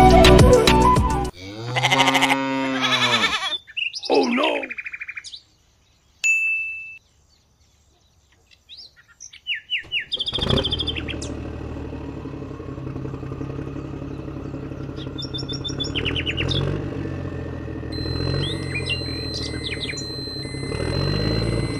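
Brief music, then a few short animal calls and birds chirping. From about halfway a steady low tractor-engine running sound starts and holds, with birds chirping over it.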